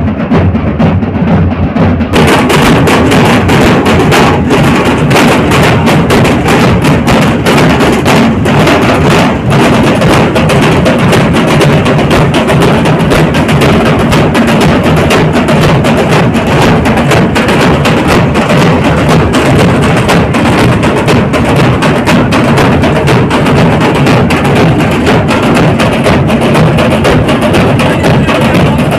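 A street drum band of large bass drums and smaller side drums beaten with sticks, playing a loud, dense, driving rhythm. The sound grows fuller and brighter about two seconds in.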